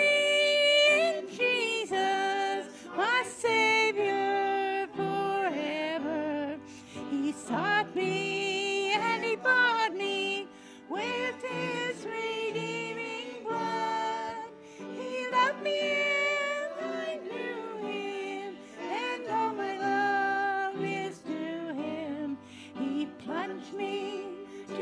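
A small vocal group, women's voices leading, singing a song with sustained, wavering notes over low accompanying notes.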